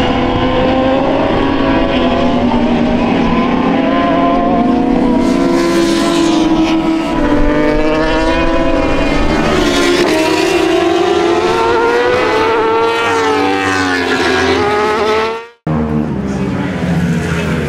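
Several racing motorcycles running hard on track, their engine notes climbing and falling as they accelerate and brake, with more than one bike heard at once. The sound cuts off abruptly about fifteen seconds in. A lower, steadier background of engine noise follows.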